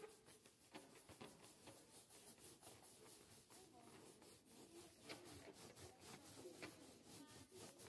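Near silence: faint children's voices with scattered light clicks and rustles.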